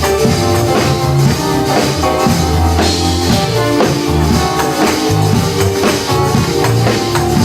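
Live gospel praise band playing an instrumental stretch between sung choruses: a steady drum beat under sustained bass and chord instruments.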